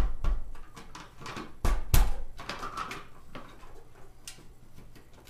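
A hand strikes the hard plastic wall panel of a PIKO G-scale building kit to force its edge into a slot that is too tight. There are a few sharp knocks, the loudest pair about two seconds in, then lighter clicks and taps of the plastic parts.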